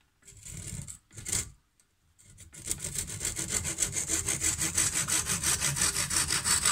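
Handsaw cutting through a thin wooden dowel held in a vise: a couple of short starting strokes, then a run of fast, even back-and-forth strokes from about two and a half seconds in that stop near the end as the cut goes through.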